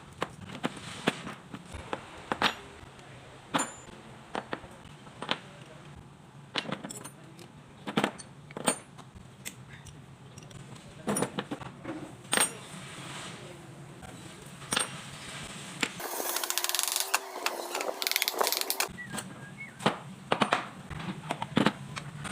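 Metal tools and starter-motor parts clinking and knocking as they are handled, in scattered separate clicks. About sixteen seconds in, a louder rushing noise lasts for about three seconds.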